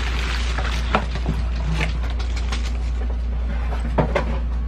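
Cellophane wrap crinkling and cardboard rustling as a wrapped set of silicone kitchen utensils in its holder is handled and lifted out of a box, with a light knock about a second in and another near the end, over a steady low hum.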